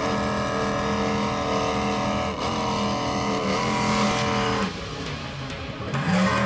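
Offshore performance powerboat engines running at high speed, a steady drone. About four and a half seconds in, the engine note drops and softens, then climbs back up near the end.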